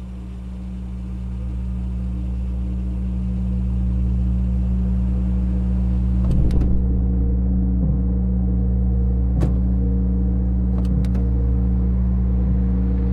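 Car engine idling: a steady low rumble that swells over the first few seconds and then holds, with a few short sharp clicks around the middle.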